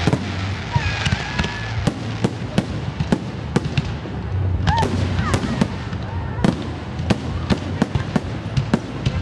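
Fireworks going off in a rapid string of sharp bangs and cracks, about two or three a second.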